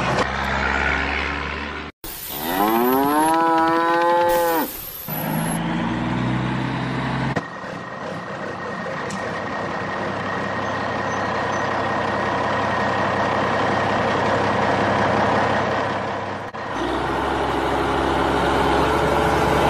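Sound effects of a tractor engine running steadily, broken about two seconds in by a single long cow moo that rises in pitch, holds, then cuts off. Then comes a long steady vehicle drone of about nine seconds, and the low engine sound returns near the end.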